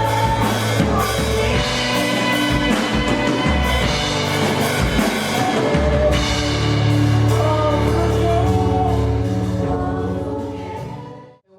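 Gospel worship music with singing and drum kit, fading out near the end.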